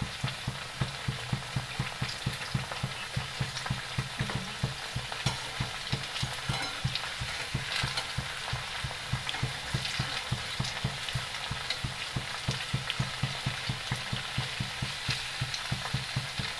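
Potato bhajis, besan-battered potato slices, sizzling and crackling as they deep-fry in oil over a low gas flame, turned now and then with a slotted spoon. A fast, regular low pulsing runs underneath.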